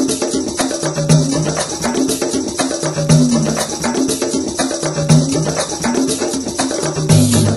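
Background music with a steady percussive beat and a low phrase that repeats about every two seconds.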